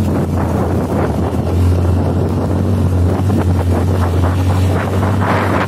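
Motorcycle engine running steadily while riding, a constant low hum, with wind buffeting the microphone and a louder gust of wind noise near the end.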